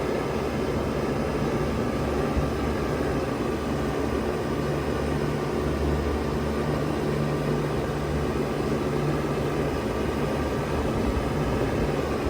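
Bard 3-ton wall-hung heat pump running steadily in heat mode: a low compressor hum under an even rush of fan air.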